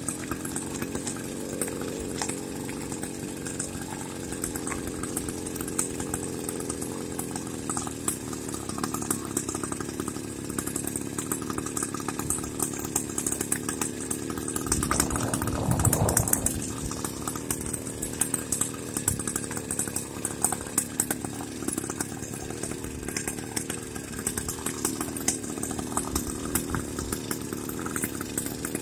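Small motorized-bicycle engine running steadily, swelling louder for about a second halfway through.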